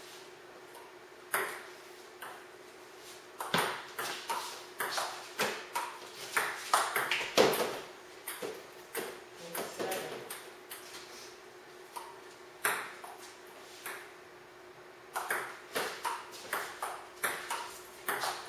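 Table tennis rallies: the ball clicks sharply off the paddles and bounces on the table in quick runs, broken by two pauses of a few seconds between points.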